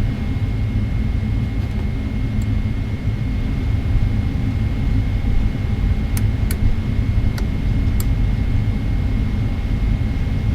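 Steady low rumble of a Boeing 777-300ER's engines and airframe heard inside the cabin while the airliner taxis, with a few light clicks a little past the middle.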